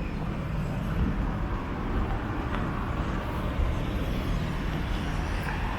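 Strong wind buffeting the microphone in a steady, fluttering low rumble, with road traffic running underneath.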